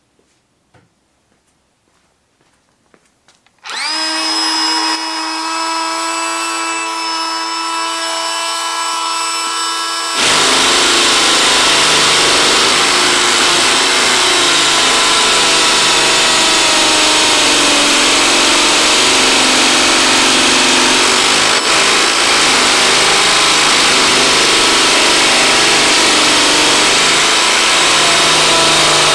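Ryobi One+ 18V brushless hammer drill boring a 3/4-inch hammer drill bit into solid stone. The motor starts about four seconds in with a steady whine. About ten seconds in it becomes a louder, steady hammering grind as the bit works into the stone.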